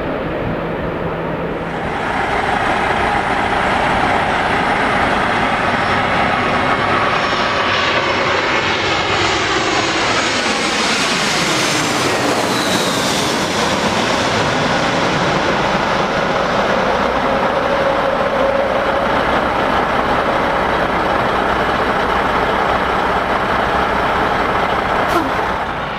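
Large jet airliner on landing approach passing close by: a steady engine rumble and whine, with tones sweeping down in pitch as it goes past about halfway through.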